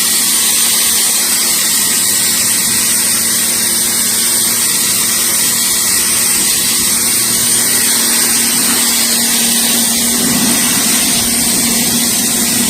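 Sun Joe SPX4000 electric pressure washer running steadily, its motor and pump humming under the loud hiss of a high-pressure water jet from a 40-degree tip spraying a car tire and rim.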